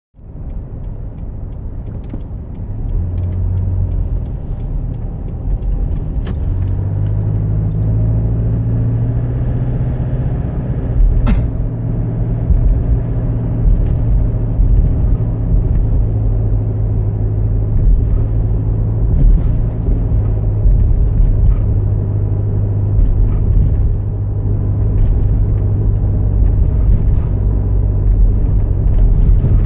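Car engine and road noise heard from inside the cabin: a steady low drone that builds over the first few seconds. Light rattling and a few clicks come between about six and eleven seconds in.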